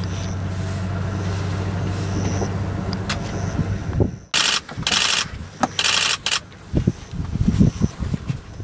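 A steady low engine hum, like a vehicle idling, for about four seconds. Then come two loud hissing bursts, each under a second long, and scattered low thumps near the end.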